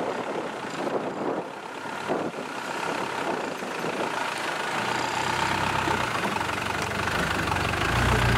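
Land Rover 110 County's engine running under load as the vehicle crawls up a rock step, its low note growing heavier about five seconds in.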